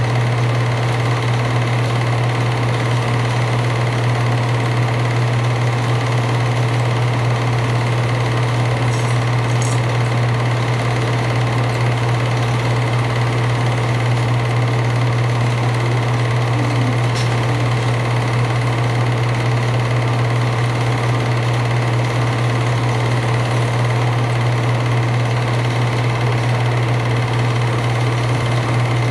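An 8mm film projector running steadily, a constant mechanical whirr and clatter with a strong low hum.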